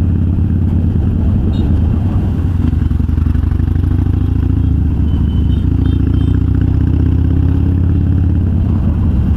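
Harley-Davidson Sportster's V-twin running steadily under way through Vance & Hines Twin Slash 3-inch slip-on mufflers with quiet baffles, a deep exhaust note that is mellower than with the standard baffles.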